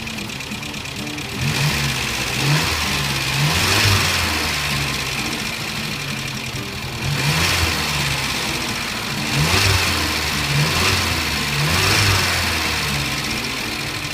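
Talbot Horizon GLS's 1442 cc four-cylinder petrol engine idling, then revved in a series of short blips that fall back to idle between them.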